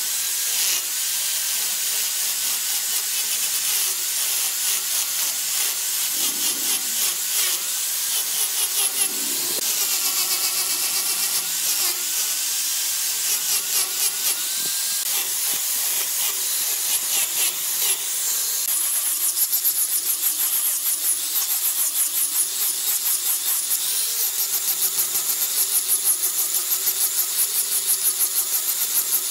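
Handheld angle grinder with an abrasive sanding disc grinding down a curved wooden handrail block, a steady high whine with a hiss of wood being abraded. The motor's pitch dips and recovers as the disc bites into the wood, and in the second half the grinding comes in quick regular strokes, about two or three a second.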